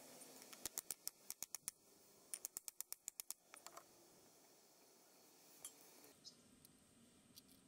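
Faint, quick taps of a wooden mallet on a heated file tang lying on a wooden block, in two short runs of light strikes, the second starting about two seconds in.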